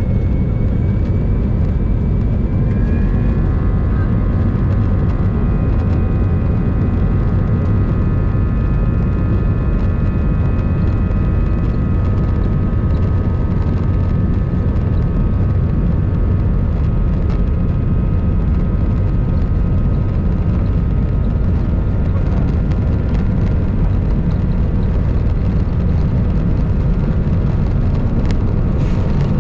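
Airbus A319 jet engines at takeoff thrust heard inside the cabin over the wing: a steady, loud rumble during the takeoff roll, with a set of high whining tones that climb in pitch about three seconds in as the engines spool up, then hold steady.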